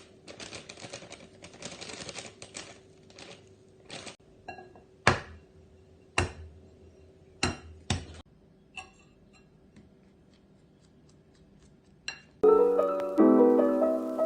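Quick clicking and clinking of utensils against dishes for the first few seconds, then a handful of separate sharp knocks and clinks. Soft piano music comes in near the end.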